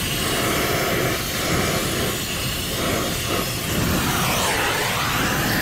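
Oxy-acetylene brazing torch flame hissing steadily while it heats a copper refrigerant line joint for silver brazing.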